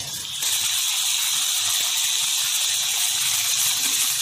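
Potato and ivy gourd pieces sizzling in hot oil in a kadai as they are stirred: a steady, even sizzle that starts about half a second in.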